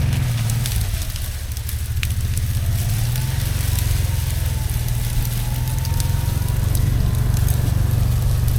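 Side-by-side utility vehicle's engine running steadily, with scattered crackles and snaps over it.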